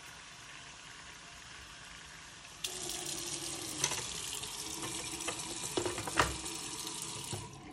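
Bathroom faucet running into the Waterpik's clear plastic reservoir as it fills. A little under three seconds in, the water turns suddenly louder, pouring straight into the sink basin. A few sharp knocks follow as the plastic reservoir is handled and set on the unit.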